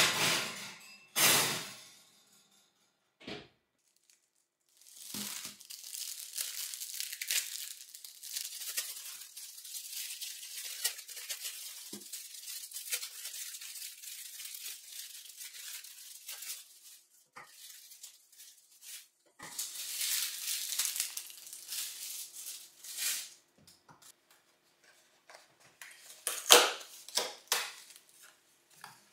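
Plastic film wrapping being torn and peeled off packaged ground beef patties, crinkling in two long stretches. Two loud knocks come at the start and a few sharp knocks near the end.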